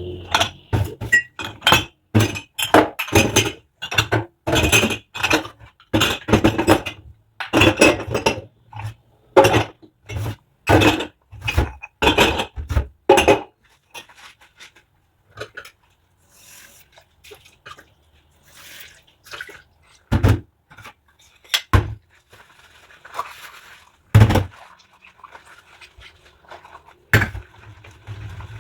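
Dishes and cutlery clinking and knocking together during hand dishwashing, with dripping water. A dense run of clatter fills the first half; after that come only a few separate knocks.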